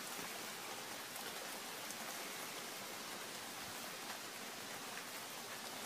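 Rain falling hard, a steady even hiss with a few faint drop ticks.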